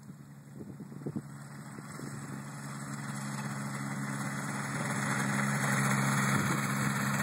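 Air Creation microlight trike's engine and pusher propeller running at low taxi power, a steady drone that grows louder as the trike rolls closer.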